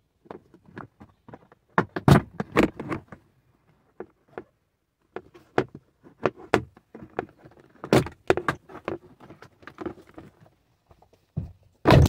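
Plastic B-pillar trim being worked loose by hand: an uneven run of plastic clicks, knocks and rattles, loudest about two seconds in and again about eight seconds in. Near the end the phone recording is bumped, giving a hard knock and handling noise.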